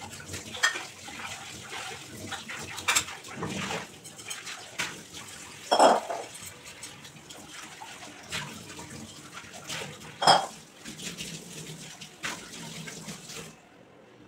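Dishes and metal utensils clinking and clanking in a kitchen, several sharp clanks, the loudest about six and ten seconds in, over a steady rushing noise that stops shortly before the end.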